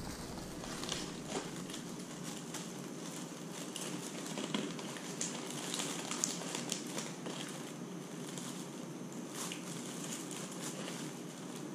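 Scattered light crackles and clicks from close handling, over a steady low room hum.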